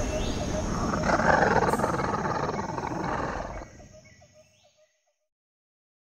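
Animal roar sound effect: one long rough roar that swells about a second in and cuts off abruptly about three and a half seconds in, leaving a short faint tail.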